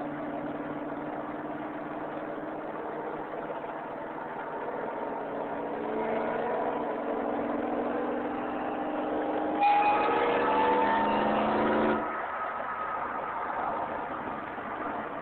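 V8 engine running, then pulling with a rising pitch as it accelerates. It grows loudest about ten seconds in, then drops off suddenly about two seconds later.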